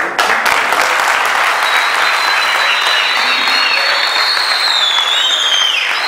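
Audience applauding steadily, with a thin high tone running over the clapping that slides down near the end.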